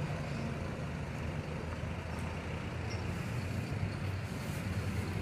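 Coach bus engine running steadily with a low hum.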